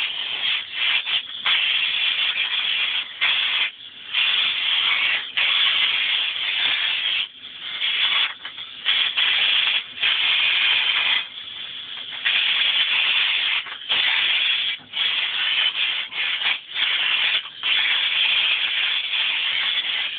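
Tesla coil sparking: a hiss of spark discharge that keeps cutting in and out, in stretches of about a second or two with short gaps between.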